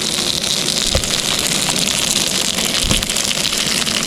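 Sausage patties sizzling as they fry, a steady dense crackle.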